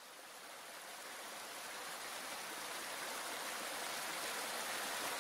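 Shallow brook running over stones, a steady rush of water that fades in and grows slowly louder.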